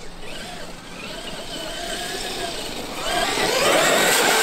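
Brushless electric motor and drivetrain of a Traxxas X-Maxx RC monster truck whining as it drives, the pitch rising and falling with the throttle. About three seconds in, a louder rushing spray takes over as the truck runs through standing water.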